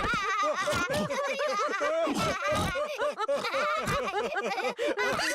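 Several cartoon voices laughing together, overlapping chuckles and giggles in quick repeated bursts.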